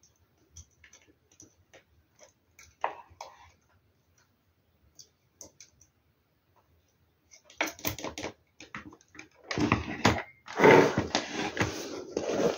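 Small clicks and taps as a hand-crank handle is fitted to a portable generator's crank arm, followed about halfway through by louder rustling and handling noise.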